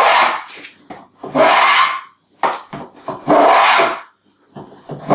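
Shoulder plane cutting a shallow rebate along the edge of a softwood board, a series of quick shaving strokes, each under a second, with short pauses between. The rebate is being taken down to its gauge line for a shiplap joint, the plane's side pressed against the rebate wall as a fence.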